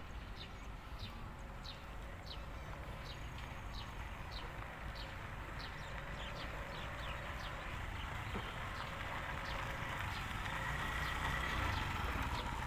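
A small animal calling with a short, high, falling chirp, repeated about one and a half times a second, over a steady low rumble that grows louder toward the end.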